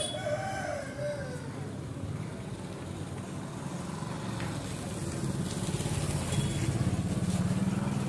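Aseel rooster crowing once, a short crow that drops in pitch at its end about a second in. Later a low rumble, like a passing vehicle, grows louder in the second half.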